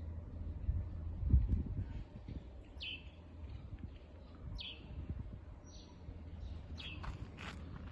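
Birds chirping: short, downward-sliding chirps repeating every second or two, with a quicker cluster near the end, over a steady low rumble.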